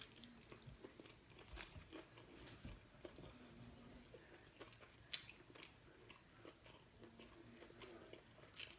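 Faint chewing and wet mouth sounds of a person eating, with scattered soft clicks and smacks, a couple of them sharper.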